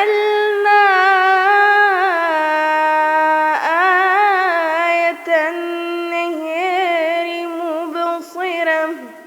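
A woman's voice reciting the Quran in melodic tajweed style, holding one long note, breaking briefly about three and a half seconds in, then singing a second long ornamented phrase that fades near the end.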